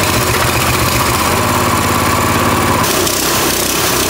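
Coleman mini bike's small single-cylinder engine running steadily under throttle, with the governor spring on its throttle linkage just taken off so it can rev higher. The sound changes slightly about three seconds in.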